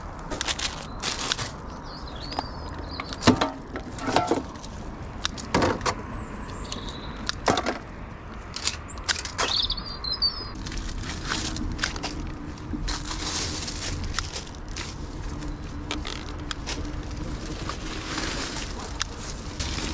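Footsteps, rustling leaves and the sharp clicks of a litter-picker grabber working through undergrowth, with short bird chirps now and then. About halfway through a steady low hum joins in under the rustling.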